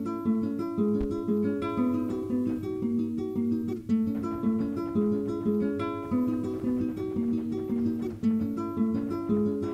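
Music: a guitar picking a quick, repeating pattern of single notes, several a second.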